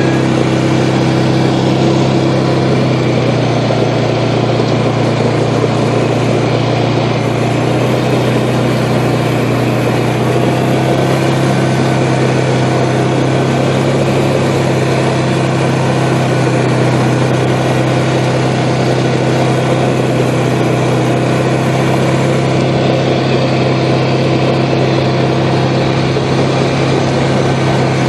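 A vehicle engine running steadily with a constant low drone and no change in pace.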